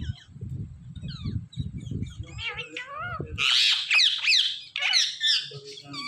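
Indian ringneck parakeets squawking: a run of loud, harsh screeches, each call swooping up and then down in pitch, starting about halfway in. A low rumble sits under the first half.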